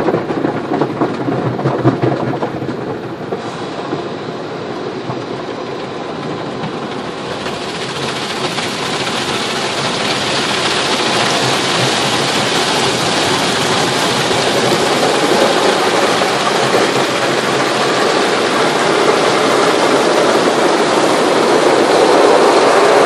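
Automatic car wash working over the car, heard from inside it: a steady rushing and rumbling noise that grows louder and brighter from about seven seconds in.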